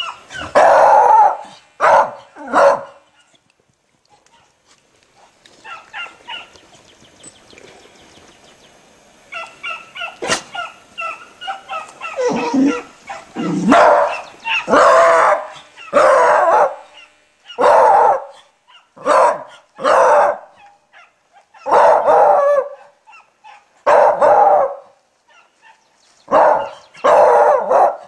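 A beagle barking loudly in short single barks, about one every second or two, with a quieter lull of several seconds after the first three barks.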